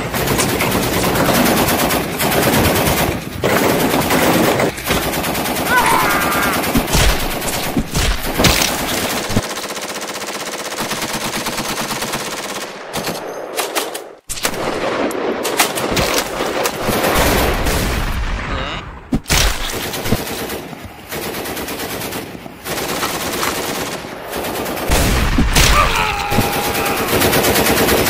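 Sustained automatic gunfire from rifles and a belt-fed machine gun, long rapid bursts in a dense exchange of fire, with a brief break about halfway through.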